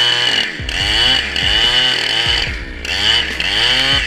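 Chainsaw engine being throttled up and down under load, its pitch rising and falling several times in quick succession with a steady high chain whine.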